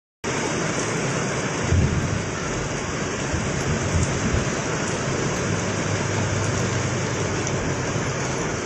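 Steady hiss of heavy rain falling on fast-flowing floodwater over a road, with a couple of brief low rumbles about two and four seconds in.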